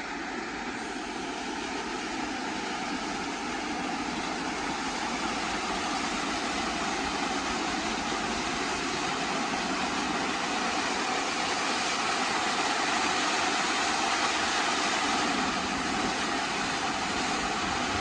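Steady rushing of a rain-fed mountain stream flowing over rocks, an even wash of water noise that swells a little partway through.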